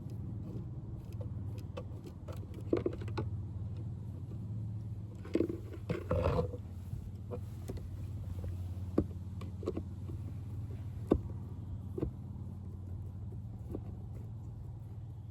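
Scattered light clicks and knocks of tools and small hardware being handled, with a short clattering rattle about six seconds in, over a steady low hum.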